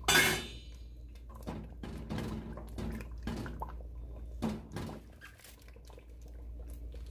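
A short metallic clank with a ringing top at the start, then a wooden spatula stirring a thick beef and eggplant stew in a stainless steel pot: wet sloshing with knocks and scrapes against the pot wall about every half second, dying away after about five seconds.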